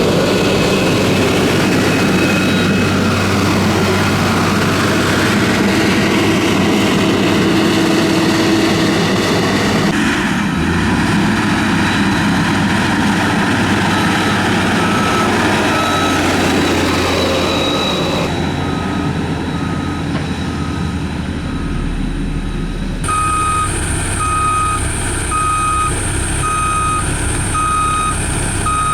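Diesel engine of heavy road-construction machinery running steadily. A reversing alarm beeps faintly partway through, then loudly and evenly about once a second over the last six seconds.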